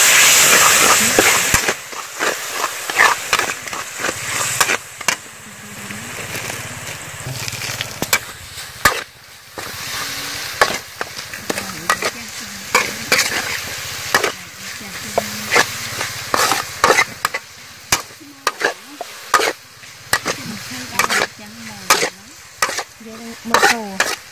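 Metal spatula scraping and knocking against a steel wok during stir-frying, with oil sizzling. A loud sizzle of garlic and chili frying in oil comes first, then drops after about a second and a half to a softer sizzle under repeated, irregular scrapes and clanks as lemongrass, chilies and leaves are tossed.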